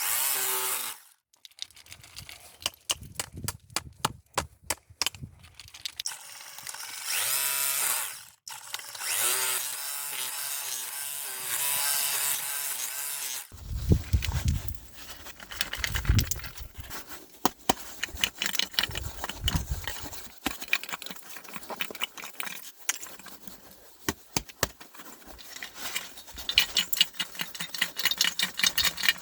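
Hammer drill in hammer mode running in bursts, breaking up the ceramic honeycomb core inside a catalytic converter. From about halfway on come low knocks and a steady clatter and rattle of broken pieces.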